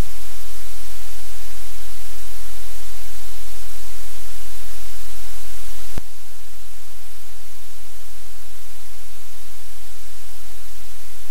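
Loud, steady static hiss with a low steady hum beneath it, and a single click about six seconds in, after which the hiss is a little quieter.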